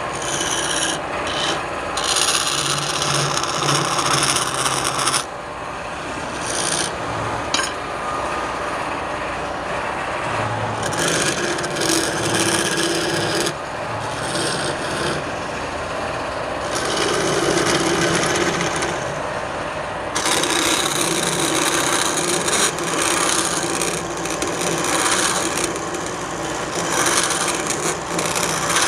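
Wood being turned on a lathe: a turning tool scraping and cutting the spinning wood, a continuous rasping noise that changes texture every few seconds as the cut changes.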